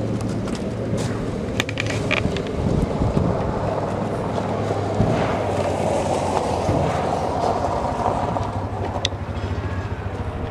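An engine running steadily at idle, with rattling and a few sharp clicks.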